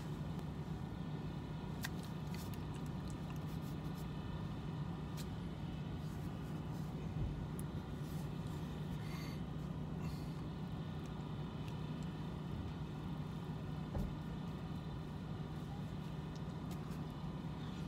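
Steady low hum of a vehicle running, heard from inside the cab, with a few soft clicks and a couple of light knocks.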